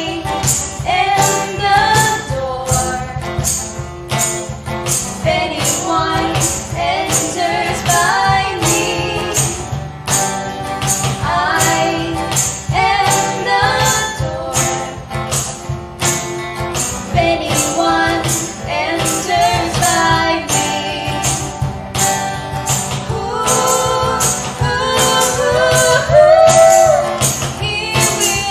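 A sung worship song: a woman's voice singing over acoustic guitar, with a tambourine keeping a steady beat.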